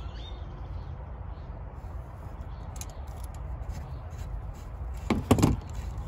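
Light metal clicks and scrapes as a calcium-seized hose coupling is worked loose from a hose bib with pliers, ending in two sharp clicks a little after five seconds in, over a steady low rumble.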